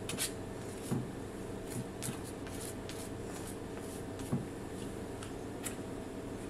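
A metal spoon scraping and spreading butter across a pancake on a plate: a run of short scratchy scrapes and light clicks that thins out after about three seconds, over a low steady hum.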